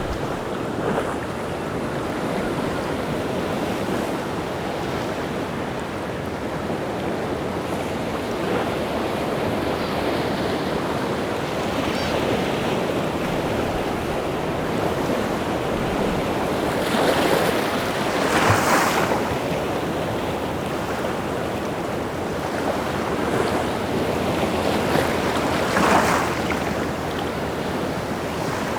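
Rough sea surf: waves breaking in a steady rush. Louder crashes come a little past the middle and again near the end.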